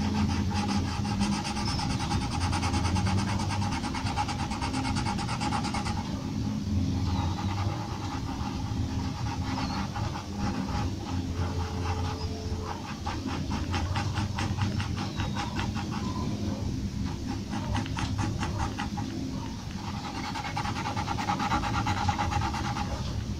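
Graphite pencil scratching on paper in rapid short hatching strokes, several a second, in runs with brief pauses between, over a steady low background hum.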